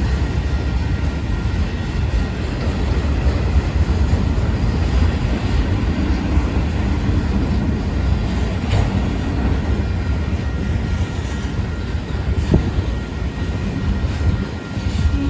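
BNSF autorack freight cars rolling past, with a steady rumble of wheels on rail and a single sharp knock about twelve seconds in.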